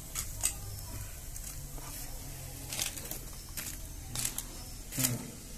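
A large knife cutting and scraping pieces of singed duck on paper: a string of short, irregular cracks and scrapes with some paper crinkling.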